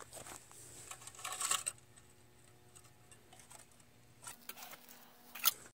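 Thin aluminium drink can, torn open by a pellet, being picked up and handled by hand: short crinkles and clinks of the metal, loudest about a second and a half in and again near the end.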